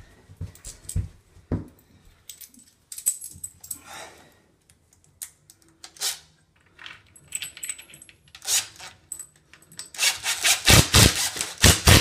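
Small scattered metal clicks as a screw and bracket are handled against the wall, then, about ten seconds in, a cordless impact driver hammering a screw home through a curtain rail bracket into a wall fixing: a fast, loud rattle of impacts lasting about three seconds.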